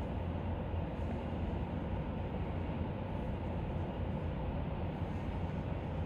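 Steady low rumble and hum of background noise, even throughout, with no distinct knocks or clicks.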